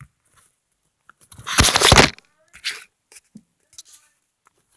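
Plastic packaging crinkling and tearing in the hands in one sharp burst of under a second, followed by a few faint handling clicks.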